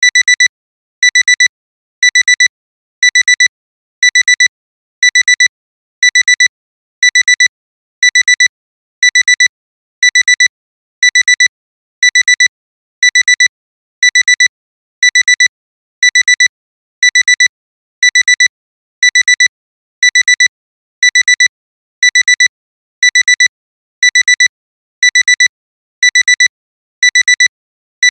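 Digital alarm clock alarm beeping, signalling that the timer has run out: clusters of quick, high-pitched beeps repeat evenly about once a second.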